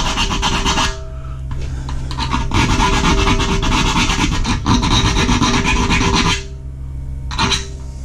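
Metal being filed, in two spells: about a second, then a longer run of about four seconds. The mount is being cleaned up so the temperature probe will fit.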